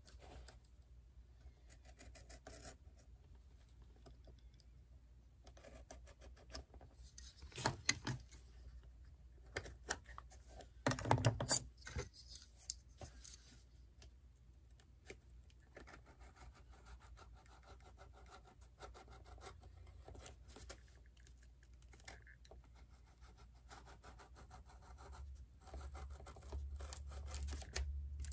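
Cobbler's bench work on a shoe: scattered small clicks, scrapes and rubbing of hand tools against leather, with two clusters of sharper knocks near the middle. A low hum grows louder near the end.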